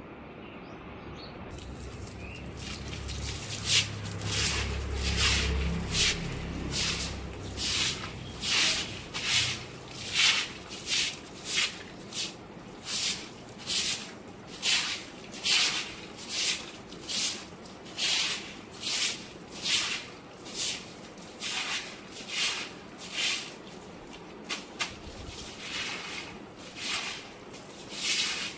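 Rhythmic wet swishing strokes, about one a second, of a broom pushing rainwater across a flooded floor, with a low rumble in the first few seconds.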